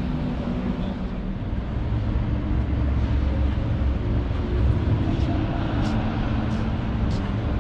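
Background hubbub of a busy indoor exhibition hall: a steady low rumble with faint distant chatter and occasional light clicks.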